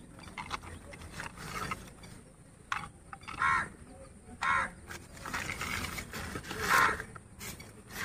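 Newspaper wrapping crinkling and rustling as a toy is unwrapped and handled, with a few short bird calls in the background, the loudest about three and a half, four and a half and nearly seven seconds in.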